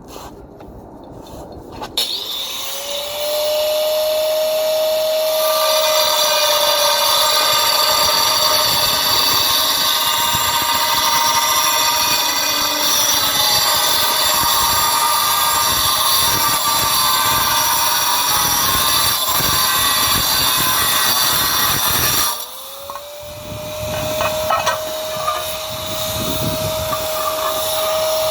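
Handheld electric power tool spinning up about two seconds in and running with a steady whine under a gritty grinding noise, as on tile repair work. About 22 seconds in it briefly slows, then spins up again and carries on.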